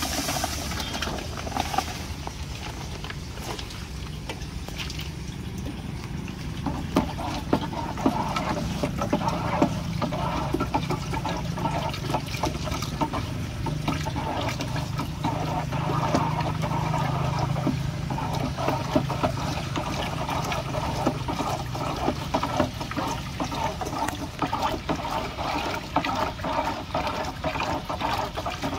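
Water sloshing and splashing in a plastic drum as it is stirred with a PVC pipe to dissolve hydroponic stock fertilizer B. The stirring grows busier from about seven seconds in, after a short hiss at the start as fertilizer is poured from a sack into the water.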